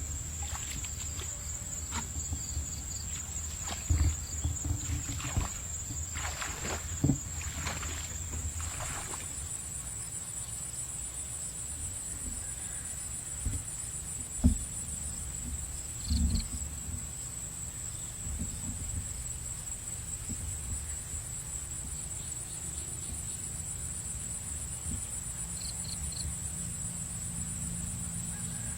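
Insects chirring in a steady high-pitched trill that shifts slightly higher about a third of the way through, over a low rumble, with a few short thumps and knocks.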